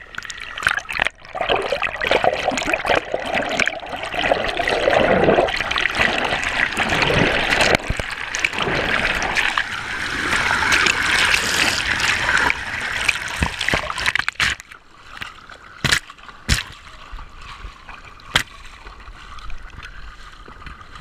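Water rushing and splashing over a camera fixed at the waterline of a dragon boat under way. It is loud for about fourteen seconds, then drops to softer lapping broken by a few sharp splashes.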